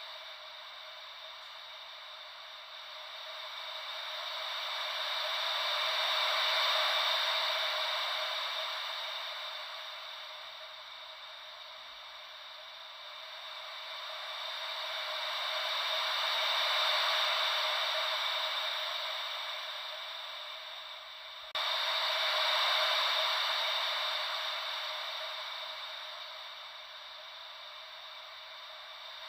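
Ocean-wave white noise: a hiss that swells and fades slowly, about every ten seconds, three swells in all, with a sudden jump in level about three-quarters of the way through.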